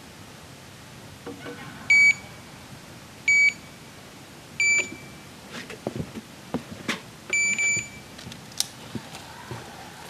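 Electronic carp bite alarms give short, high single beeps about 2, 3.5 and 5 seconds in, then a quick double beep near the end, as line is drawn across them while the rods are handled to recast. Light clicks and knocks of rods and reels being handled come between the later beeps.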